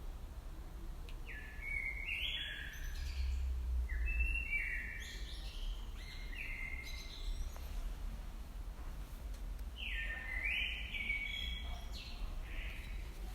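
A small songbird chirping in two runs of short, quick notes, the first from early on to about the middle and the second near the end, over a low rumble of wind.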